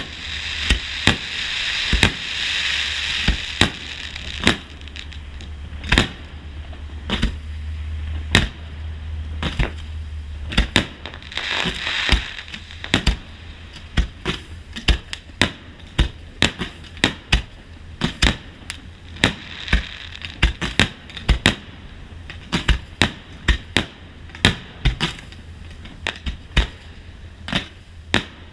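Aerial fireworks going off: a fast, irregular string of sharp bangs from bursting shells, with stretches of crackling from crackle effects.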